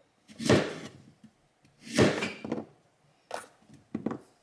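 Kitchen knife on a cutting board: a few separate knocks and scrapes, the loudest two about a second and a half apart, then smaller ones near the end.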